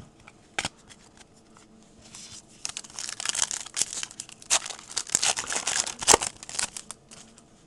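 Foil wrapper of a 2009 Donruss Classics trading card pack being torn open and crinkled by hand: a crackling rustle with many sharp crackles that starts about two and a half seconds in and lasts about four seconds, after a few faint clicks of handling.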